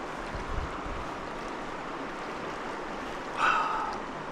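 Steady rush of a flowing stream, with a brief louder sound about three and a half seconds in.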